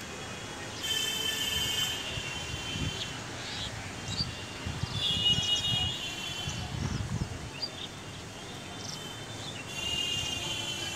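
Vehicle horns sounding several times, each for about a second, over a low rumble of traffic, with a few short bird chirps between them.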